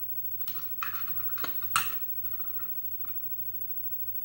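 Small metal lock parts clicking and rattling as a padlock is taken apart to get its driver pins and springs out. A cluster of clicks comes about half a second to two seconds in, loudest near two seconds, then a couple of lighter ticks.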